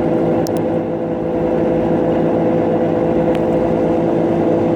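Kenmore Elite Oasis high-efficiency top-load washing machine in its spin cycle: the drum and motor run at a steady speed with an even hum made of several constant tones over a rumble.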